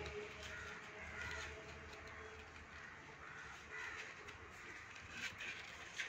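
Crows cawing faintly several times, with a couple of soft knocks near the end as a plastic pipe is handled.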